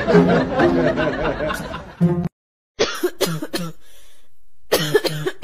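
Background music with plucked strings stops about two seconds in. After a brief gap come several short, sharp coughs in two bouts.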